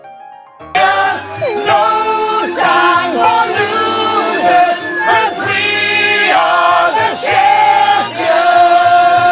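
Soft music, then under a second in several people start singing along loudly and together over a pop song's backing track.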